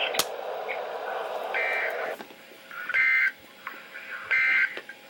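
Emergency Alert System end-of-message data bursts: three short, buzzy two-tone bursts about a second and a half apart. This is the digital code that closes a broadcast warning.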